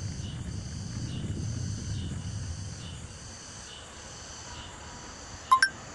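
A steady chorus of insects chirping in roadside trees, pulsing a couple of times a second. A low rumble on the microphone in the first half fades away, and a short sharp chirp stands out near the end.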